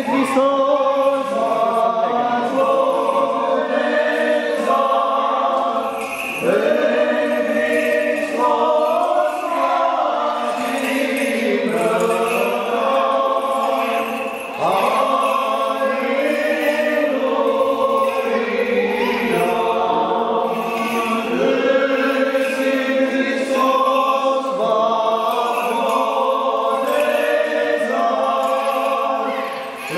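Several voices singing Orthodox liturgical chant in the Romanian baptism service, in phrases of several seconds with short breaks between them.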